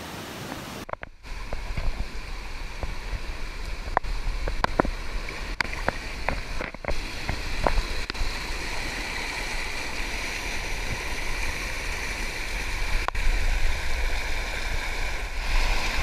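Cascading water of a jungle waterfall rushing steadily. It breaks off for a moment about a second in, then comes back louder with a low rumble, and a few sharp clicks sound over it between about four and eight seconds in and once more later.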